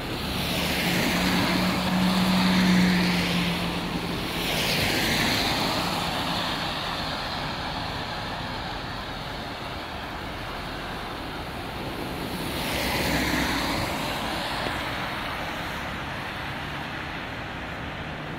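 Vehicles passing on a rain-wet street with tyre hiss, in three swells: near the start, about five seconds in, and about thirteen seconds in. The first pass carries a steady low engine hum.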